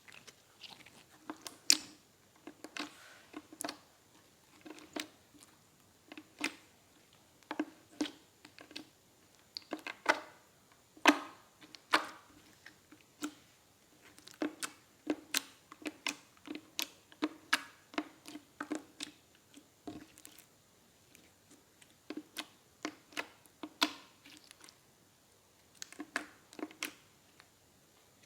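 Clear crystal slime being squeezed and pressed by hand, giving a steady run of short wet clicks and pops, about one or two a second.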